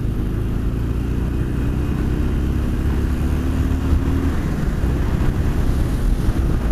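Harley-Davidson SuperLow 883's air-cooled V-twin running under acceleration, its pitch rising slowly for about four seconds. After that a rush of wind noise covers it.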